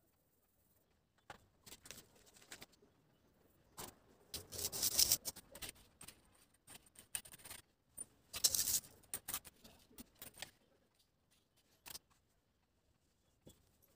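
A ruler scraping along the floor, pushing the loose edge of coloured rangoli powder into a straight border, with light taps in between. Two longer scraping passes come about four and eight seconds in.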